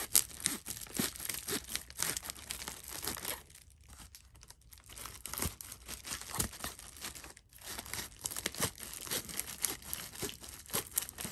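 Fiskars titanium-blade scissors cutting through parcel packaging, with the packaging crinkling and tearing in irregular snips and crackles. It goes quieter for a second or so a few seconds in.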